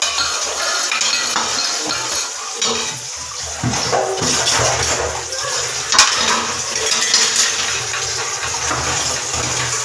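Hand-washing of metal kitchen utensils: pans and steel vessels clinking, knocking and scraping against each other, with water running under them. One sharp metal clank about six seconds in is the loudest sound.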